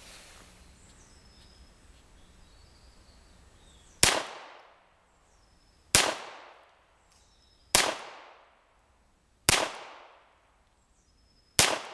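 Beretta Model 76 .22 Long Rifle semi-automatic pistol firing five single shots, roughly two seconds apart, starting about four seconds in. Each shot is a sharp report that dies away over about half a second.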